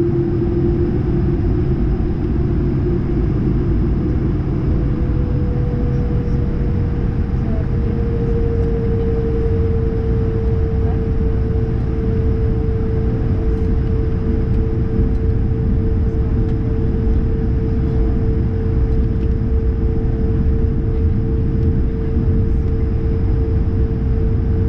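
Cabin noise of an Airbus A220-100 taxiing: a steady low rumble with the whine of its Pratt & Whitney PW1500G geared turbofans. A lower whine fades in the first few seconds while a higher one rises slightly and then holds steady.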